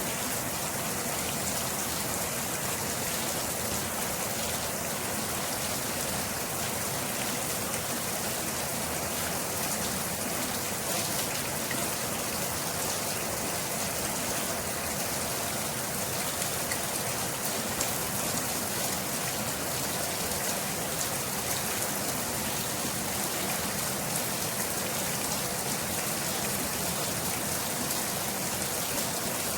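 Steady rain falling and pattering on a surface, an even hiss dense with small drop ticks.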